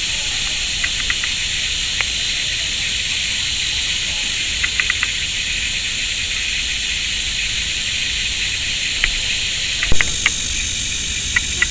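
Steady high hiss of outdoor mudflat ambience, with small clusters of faint short clicks scattered through it and one louder click about ten seconds in.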